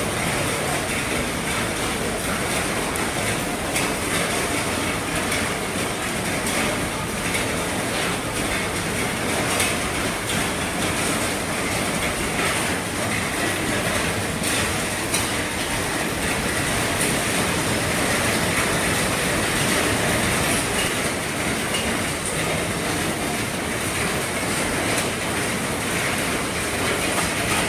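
Heavy rain falling steadily on an RV roof: a dense, even hiss of rain with many sharp individual drop taps on the roof.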